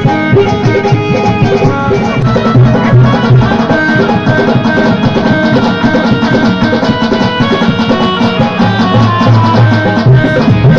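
Instrumental passage of live Hindu devotional kirtan music: a steady drum and percussion rhythm under held melody notes, with no singing.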